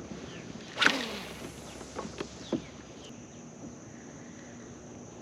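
A fishing cast with a spinning rod: a sudden swish and line running off the reel about a second in, then a few light clicks and knocks of the reel and tackle.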